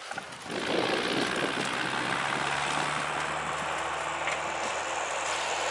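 Ursus tractor's diesel engine running steadily, a low even hum under a broad rushing noise.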